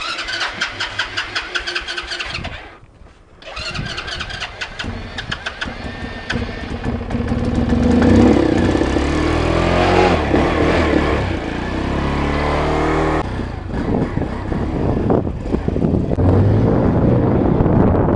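A 125cc Honda-clone pit bike's horizontal single-cylinder engine being cranked while flooded from standing nose-up on the stand. It cranks in two spells with a short pause between, catches about seven seconds in and is revved up and down, then runs steadily as the bike is ridden off.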